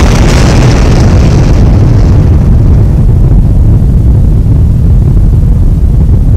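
Loud, deep rumble of a large explosion, set over atomic-bomb footage. The blast's high hiss fades over the first two or three seconds and the low rumble keeps rolling on.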